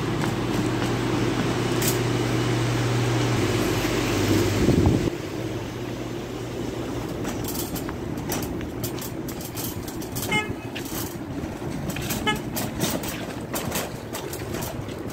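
Metal shopping cart rolling and rattling as it is pushed, with many small clicks. A steady low hum carries the first five seconds and stops just after, and two short car-horn toots sound about two seconds apart in the second half.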